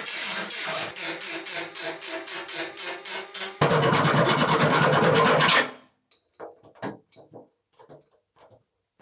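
Metalworking tool work: rhythmic rasping strokes, about three a second, then a louder steady noise for about two seconds that stops abruptly, followed by a few light clicks and taps.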